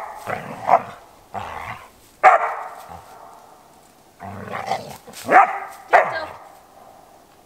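A dog barking and growling in play: a series of short, loud barks in two runs, the first in the opening two and a half seconds and the second from about four to six seconds in.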